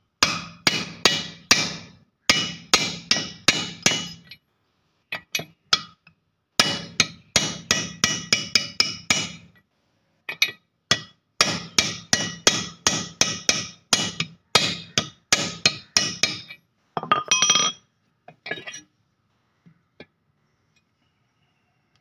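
A hammer tapping a steel socket used as a driver to seat an oil seal into a high-pressure plunger pump's crankcase bore. It comes as runs of quick, ringing metal strikes, about three to four a second, with short pauses, and thins to a few light knocks near the end.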